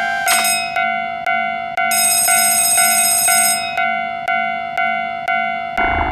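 Japanese level-crossing warning bell clanging in a steady repeating rhythm, about two and a half strikes a second. A second, higher and brighter ringing tone joins for about a second and a half in the middle, and synthesizer music comes in near the end.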